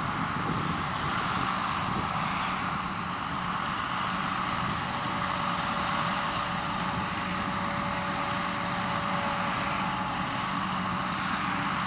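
Heavy farm machinery running steadily, with a constant engine and mechanical drone; a faint steady whine joins about halfway through.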